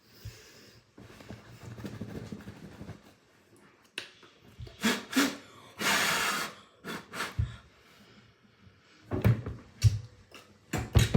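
Close breathing and sniffing while a fragrance tester is handled, with rustling and several light clicks. There is one longer breathy hiss about six seconds in, and a few short huffs near the end.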